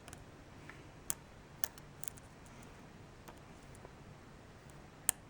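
Sparse small metallic clicks of a lock pick working the pins of a pin-tumbler challenge lock with security pins, about five in all, the loudest near the end.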